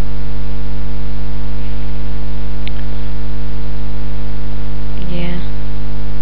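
Loud, steady electrical mains hum with a stack of overtones, running under the recording. About five seconds in there is a short vocal murmur.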